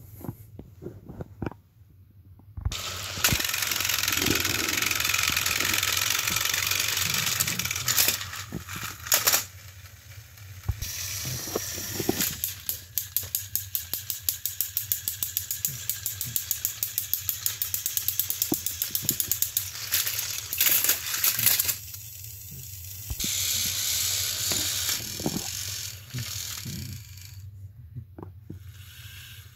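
Thomas & Friends TrackMaster battery-powered toy engines running on plastic track: a steady whirring of small gear motors and wheels. For several seconds in the middle, a rapid regular clicking of about four a second runs through it.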